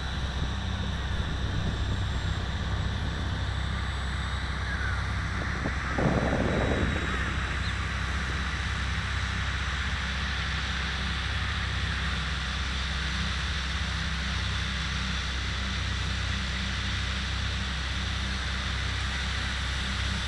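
Steady outdoor wind noise on the microphone, with a faint thin whine from the distant electric model plane's motor that fades after about nine seconds. A brief louder rush comes about six seconds in, and short bird chirps are heard a few times.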